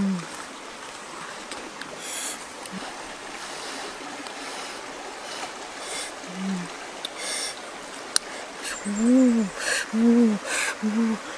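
Soft rustling of hands pulling flesh off a grilled fish laid on large leaves. Short low hooting tones come now and then, three in quick succession near the end.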